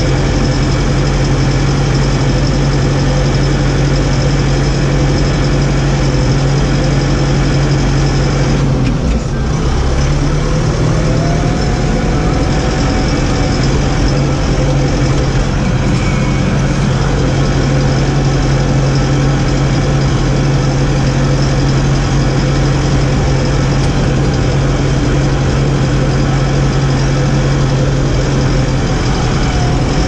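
New Holland T4.75 tractor's four-cylinder diesel engine running steadily, heard from inside the cab. About nine seconds in, the engine note drops for a moment, then runs a little higher for a few seconds before settling back.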